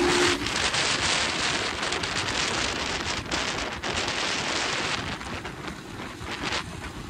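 Wind rushing and buffeting over the microphone of a moving motorcycle, slowly getting quieter. The engine's steady note cuts off about a third of a second in, as the bike coasts with the throttle closed.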